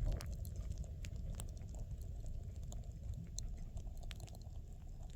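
Low rumbling handling noise with scattered light clicks: the recording device being held and moved by hand close to the microphone.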